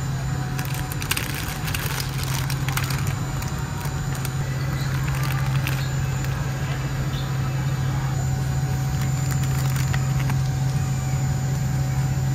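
Crinkling and crackling of plastic snack packets being handled and pulled from a shelf, thickest in the first few seconds, over a steady low hum of shop ambience.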